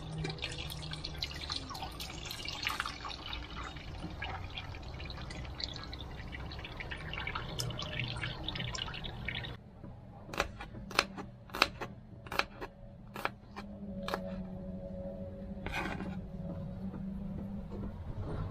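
Coconut milk poured through a metal colander into an aluminium pot of fish, splashing and trickling. Then a string of sharp knocks from a kitchen knife chopping red onion on a plastic cutting board.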